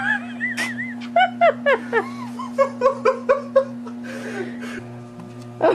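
A person laughing in a run of short giggling bursts that trail off into breathy laughter, over a steady low hum from the running treadmill.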